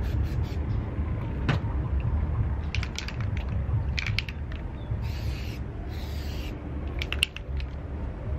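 Aerosol spray-paint can hissing in one burst of about a second and a half past the middle, among scattered sharp clicks and a steady low rumble.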